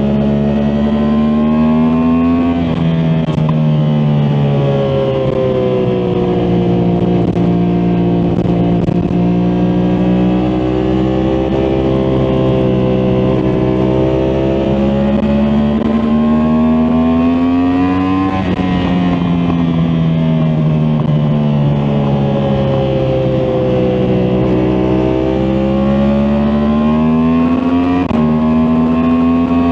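2023 Yamaha MT-10 SP's crossplane 998 cc inline-four motorcycle engine running under way, its note rising and falling with the throttle. The pitch changes suddenly a few times: about two and a half seconds in, about eighteen seconds in and near the end.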